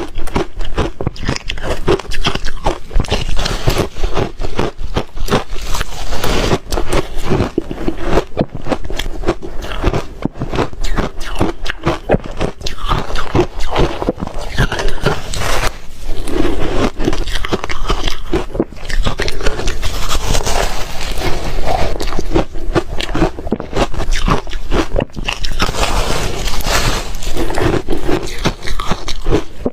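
Close-up crunching and chewing of reshaved refrigerator ice: dense, irregular crackles and crunches as the ice is bitten and chewed.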